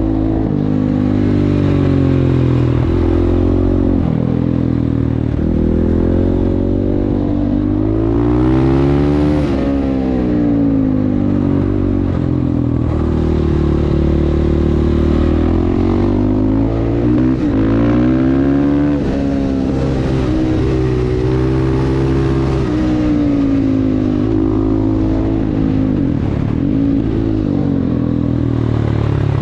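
Supermoto motorcycle engine being ridden hard, revs climbing and dropping over and over as it accelerates, shifts and shuts off for corners.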